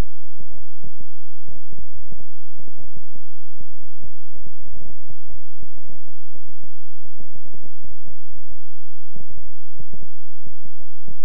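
Synthesized healing-frequency track: a steady low drone of layered tones, broken by uneven clicking pulses several times a second.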